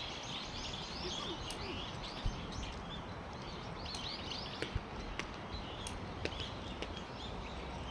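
A flock of small birds chirping continuously, many short calls overlapping, over a steady low rumble, with a few faint ticks.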